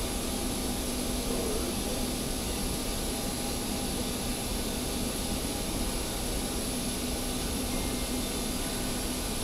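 Steady jet aircraft noise: an even drone with a constant low hum and a faint high whine, unchanging throughout.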